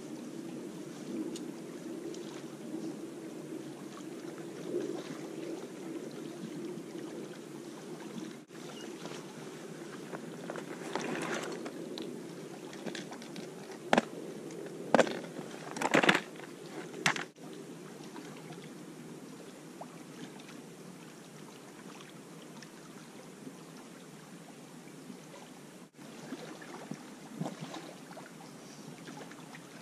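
Small waves lapping steadily against the rocky shoreline. About halfway through, a few loud clicks and rattles come from a plastic tackle box being handled.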